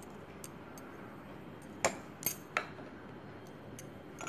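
A metal spoon clinking against drinking glasses while rabri is spooned in: faint light taps, then three sharper clinks close together about two seconds in.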